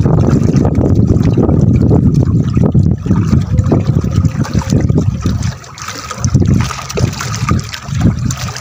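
Seawater sloshing and splashing against the side of a small wooden fishing boat on a choppy sea, loud and surging irregularly, easing off a little about halfway through.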